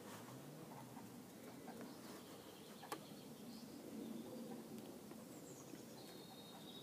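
Quiet outdoor ambience with a few faint, high chirps and a single sharp click about three seconds in.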